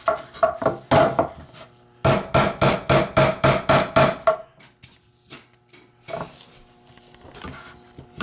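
Small tack hammer tapping nails into a wooden beehive frame in quick runs of taps, about five a second at the fastest, with a pause around the middle. The nails, which anchor the frame's support wire, are only being driven partway in.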